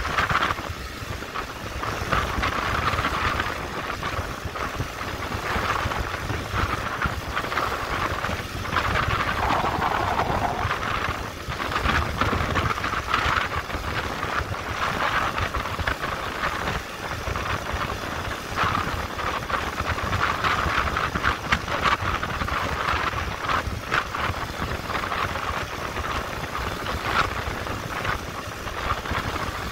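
Motorcycle on the move: a steady run of engine and road noise, with wind buffeting the microphone as a fluctuating low rumble.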